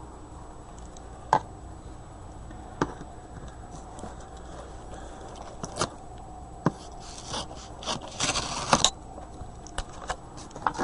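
Scattered handling noises from the boxed book and its packaging: a few light knocks and taps, then a short scraping rustle a little over 8 seconds in.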